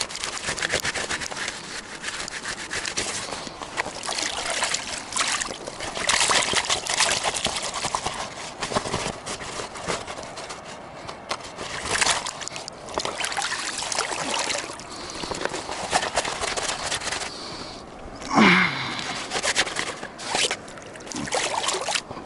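Steady rush of water from a waterfall, with irregular clicks and rustles over it and, about eighteen seconds in, a short sound that falls steeply in pitch.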